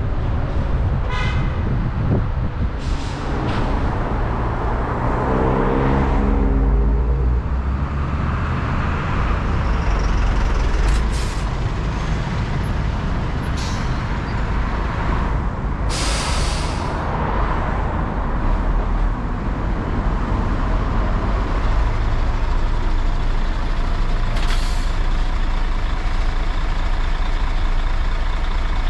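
City street traffic heard from a moving car: a steady low rumble of road and engine noise. About six seconds in, a passing engine's note falls in pitch, and several short, sharp hisses follow in the middle and once more near the end.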